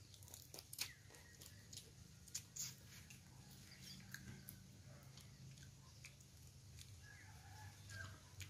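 Faint cracking and clicking of boiled blue crab shell being picked apart by hand and eaten, with a few sharper snaps in the first three seconds.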